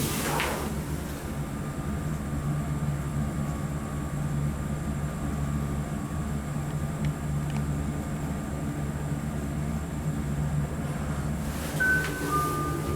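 Seiwa elevator car running with a steady low hum. Near the end comes a two-note chime, a higher tone then a lower one: the elevator's direction chime, which sounds differently for up and down.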